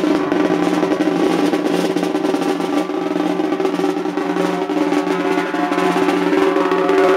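A BMS PowerBullet vibrator buzzing while it rests on a snare drum head. It rattles the head and snares in a steady, unbroken roll over a constant hum.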